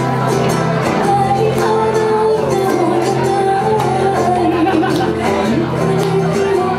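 Live band music with singing: a wavering sung or played melody over held notes and a steady rhythm of short strokes.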